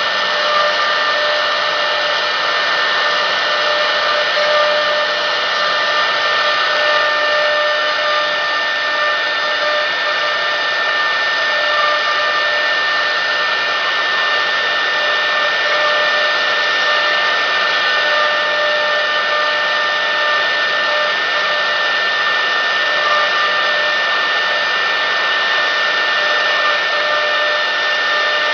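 Spindle motor of a 1325 CNC wood router with a rotary axis running steadily: an unbroken whine of several steady tones over a hiss.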